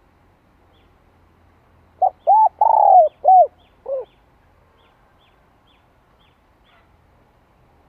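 Spotted dove cooing one phrase about two seconds in. It goes as a short note, an arched note, a long falling note, another arched note, and a lower short note to close.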